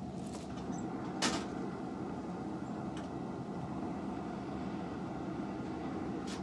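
A forge running with a steady low roar, with one sharp knock a little over a second in.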